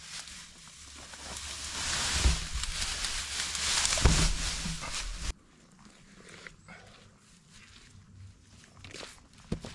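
A dog close by: a loud rough hiss that builds over the first few seconds with a couple of dull thumps, then cuts off abruptly about five seconds in, leaving only faint clicks.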